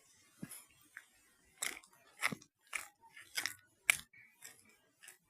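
Footsteps crunching at a walking pace, about two steps a second.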